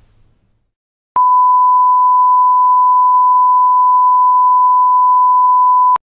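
A steady electronic test tone at one fixed pitch, the TV 'no signal' beep, starting about a second in and cutting off suddenly at the end.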